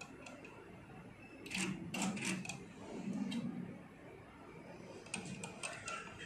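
Short runs of sharp mechanical clicks from a Zeiss Visucam 524 fundus camera and its controls as it captures an indocyanine green angiography frame: one cluster about a second and a half in, another near the end.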